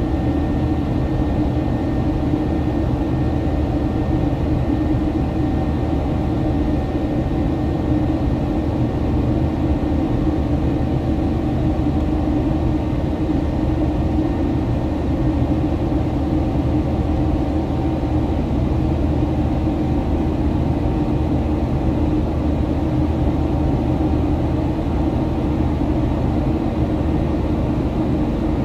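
Steady cabin noise of a Boeing 737-900 climbing after takeoff: the even drone of its CFM56-7B turbofan engines and airflow, heard from a window seat inside the cabin, with a low hum and a few faint held tones.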